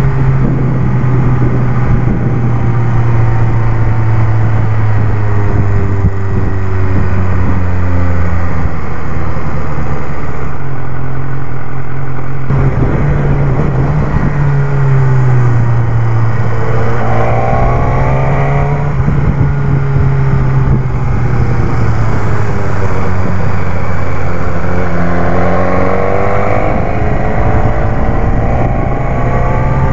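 BMW S1000R's inline-four engine heard from on the bike while it is ridden. The revs fall away slowly, climb sharply under throttle about halfway through, fall again and climb once more near the end.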